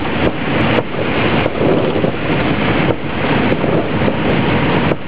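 Small airplane landing: a loud, steady rush of wind mixed with the drone of the engine.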